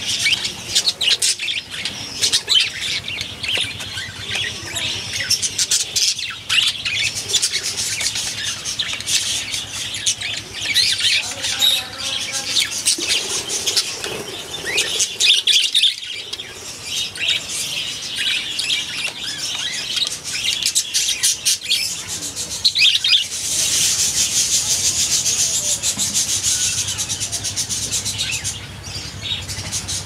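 A flock of caged budgerigars chattering and chirping without a break, a dense mix of short warbles and chirps. About three-quarters through, the chatter grows thicker and higher for several seconds.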